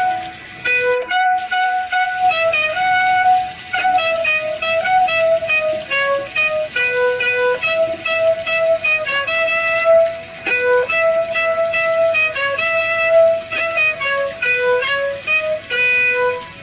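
Violin playing a melody, one note at a time, in steps of held notes.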